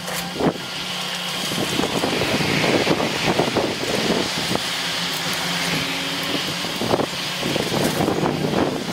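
Heavy excavator engine running under load, with irregular crunching and clattering of demolition debris throughout.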